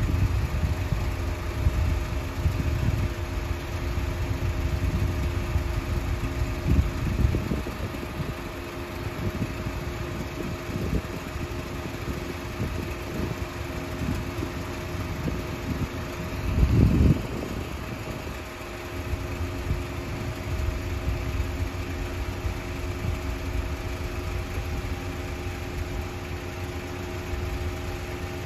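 Steady low drone of a passing lake freighter's engines carried across the water, a few even hum tones held throughout. Wind buffets the microphone with low rumbling gusts, the strongest a little past halfway.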